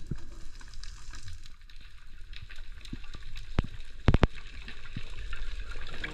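Underwater water noise picked up by a submerged camera: a low rushing wash with scattered light clicks, and a quick run of three sharp clicks about four seconds in.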